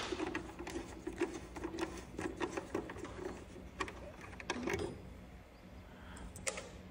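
Screwdriver backing a screw out of a garage door opener's plastic battery cover: a run of small, rapid clicks and scrapes for about five seconds, then a couple more clicks near the end.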